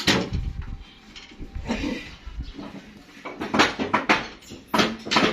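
A series of irregular knocks and clattering thumps, the first and loudest right at the start, with a busy cluster of them in the second half.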